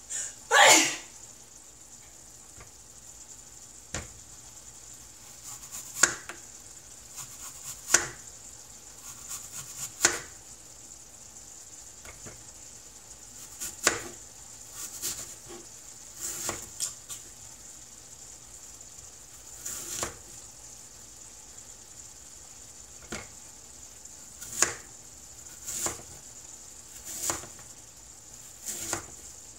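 Ground beef frying in a skillet on an electric coil burner: a steady sizzle with sharp pops at irregular intervals, one to a few seconds apart. A loud short burst comes near the start.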